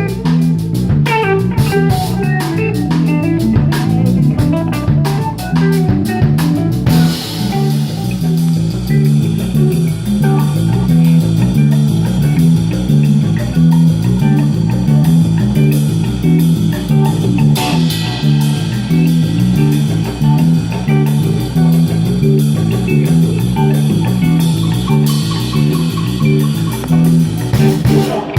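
A live rock band playing an instrumental passage: guitar, bass guitar and drum kit keeping a steady beat, with cymbals washing in about a quarter of the way through.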